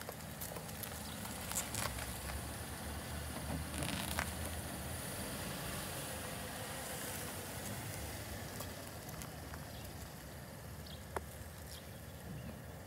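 Chevrolet Impala sedan rolling slowly past at low speed, its engine and tyres growing louder as it comes close and fading as it moves away, with scattered small clicks and crackles.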